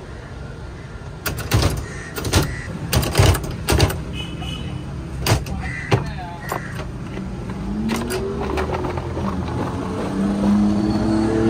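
Steady road-traffic rumble with a series of sharp knocks in the first half. From about two-thirds of the way in, a vehicle engine rises in pitch and grows louder.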